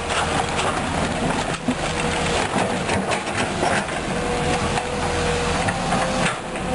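Komatsu PC200-8 Hybrid excavator's diesel engine running steadily as it digs, with rock knocking against the bucket now and then.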